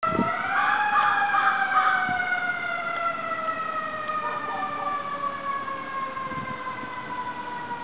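Fire truck siren, rising quickly at the start and then falling slowly and steadily in pitch.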